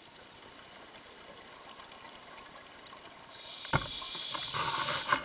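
Underwater, a faint steady hiss, then about three seconds in a knock and a bubbling rush of a scuba diver's exhaled regulator bubbles as the camera is moved, with a few clicks near the end.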